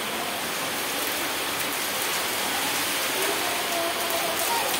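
Steady rain falling on a wet concrete yard, an even hiss that doesn't let up.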